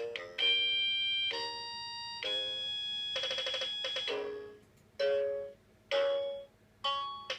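Anpanman toy electronic keyboard playing its built-in demo melody in simple electronic ringtone-like tones. A run of long held notes is followed, from about four and a half seconds in, by three short separate notes with pauses between them.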